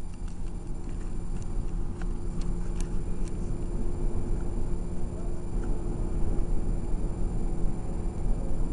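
Steady low rumble of engine and road noise inside a moving city bus, with a constant hum running under it. A few light clicks in the first three seconds or so.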